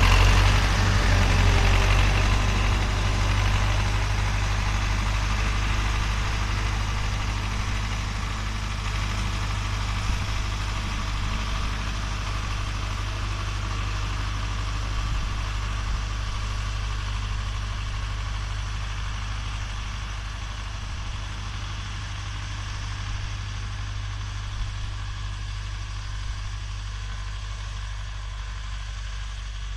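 Tractor diesel engine running steadily under load while pulling a plough, a low drone that fades gradually as the tractor moves away.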